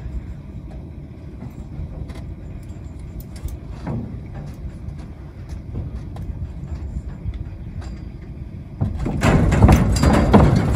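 Horse being unloaded from a metal stock trailer: scattered small clicks and clanks of the gate and fittings over a steady low rumble, then, about nine seconds in, a loud run of thumps and clatter as the horse's hooves strike the trailer floor on its way out.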